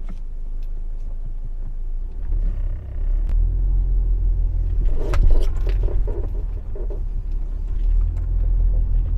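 Low rumble of a 2015 Audi A4 on the move, with a run of rapid creaking squeaks from the front suspension about five to seven seconds in. The squeak is like rubber bushings rubbing, which the mechanic traces to worn control-arm bushings.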